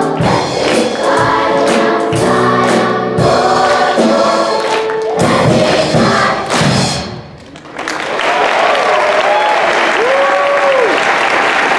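Children's choir with accompaniment singing the last bars of a gospel-style spiritual, ending on a final chord about seven seconds in. Audience applause follows at once, with cheering whoops over it.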